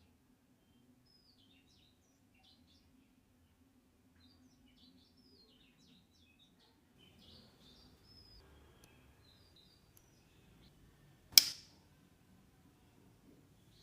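Faint bird chirps in the background with soft handling rustle. About eleven seconds in, there is one sharp, loud snap.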